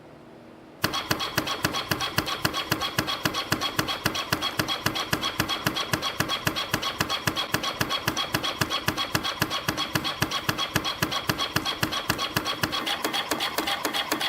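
CNC spring coiling machine (YHM CF-310) running, coiling 0.7 mm wire into conical compression springs. It starts suddenly about a second in and then gives a fast, even rhythm of clattering mechanical strokes, about five or six a second.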